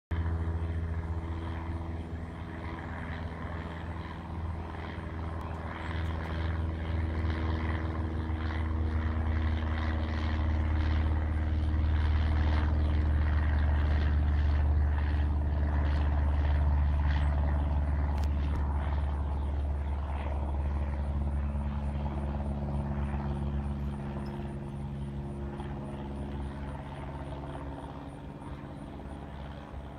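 Cessna 172 Skyhawk's piston engine and propeller droning overhead in a flyby. The drone grows louder to a peak about halfway through, then fades and drops a little in pitch as the plane moves away.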